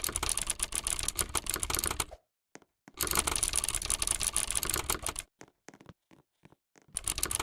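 Fast typing on a computer keyboard: a dense clatter of key clicks that breaks off twice, briefly about two seconds in and for more than a second later on, with only a few stray keystrokes in the pauses.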